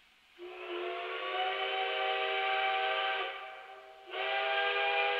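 Steam locomotive whistle blowing as the train departs: one steady blast of several tones sounding together, about three seconds long, then a brief break and a second blast from about four seconds in.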